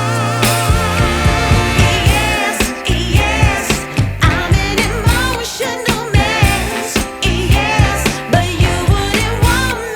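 Music with a steady drum beat, a bass line and a lead melody with vibrato.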